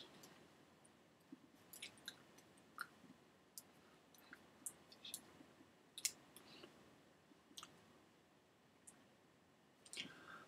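Near silence with a dozen or more faint, irregular clicks and taps from the hands and finger rings of a person signing, the sharpest about six seconds in.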